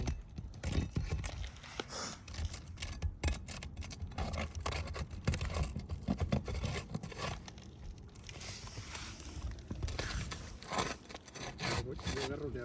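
Irregular scraping and rubbing, with scattered taps and clicks, from hand work on roof shingles; a longer scrape comes about eight seconds in.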